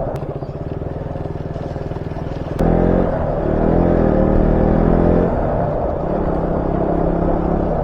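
Motorcycle engine running on the move, steady at first, then louder with its pitch rising as it accelerates from about a third of the way in, easing back down a couple of seconds later.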